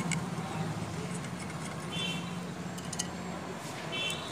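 Small metallic clicks of a tool and hand on the clutch spring bolts of a Yamaha FZ-S 150 as they are tightened, over a low steady hum. Two short high-pitched chirps sound about two and four seconds in.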